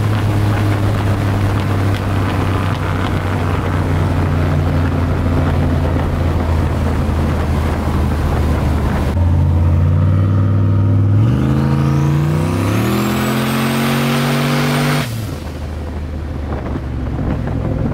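Turbocharged 5.3-litre LM7 V8 in a 1941 Chevrolet Master Deluxe, heard from inside the cabin. At first it cruises steadily under loud wind and road noise. About ten seconds in, the engine pitch climbs under hard acceleration, with a thin turbo whistle rising alongside it, and then it drops off suddenly.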